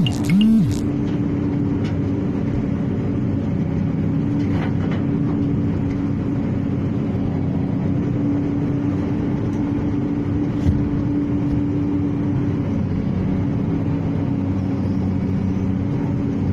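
Excavator engine running steadily with a constant hum. Two short tones that rise and fall in pitch sound right at the start, and a single sharp click comes a little past the middle.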